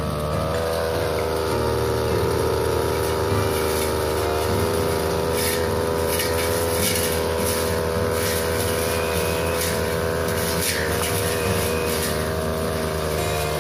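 Backpack brush cutter engine running steadily at working speed, with brief crackles from about five seconds in as its 45 cm blade cuts into the leafy hedge.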